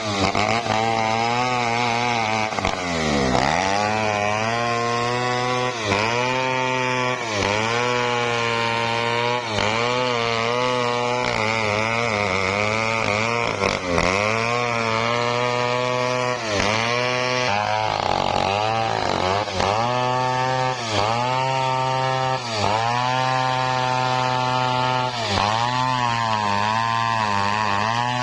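Stihl 070 two-stroke chainsaw ripping lengthwise through teak at high revs, its engine note dipping and recovering every second or two as the chain is loaded in the cut.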